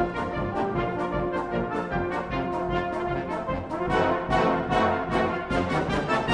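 Background music with brass instruments over a steady beat.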